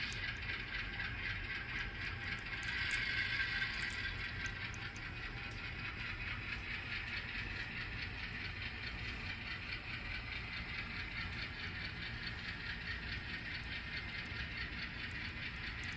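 HO scale model train running: an Atlas ALCO RS3 locomotive and covered hopper cars rolling along the track with a steady, fine rattle, a little louder about three seconds in.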